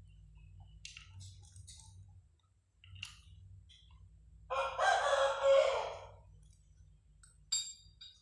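A single loud animal call lasting about a second and a half, partway through, over a low steady hum, with a few faint clicks around it.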